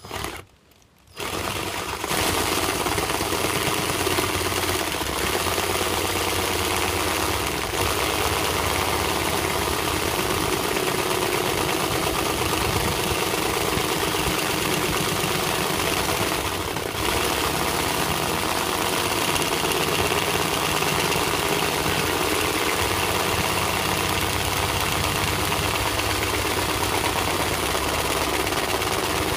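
Cordless drill running steadily as its bit cuts slowly through a van's metal roof under light pressure, starting about a second in. It eases briefly once midway.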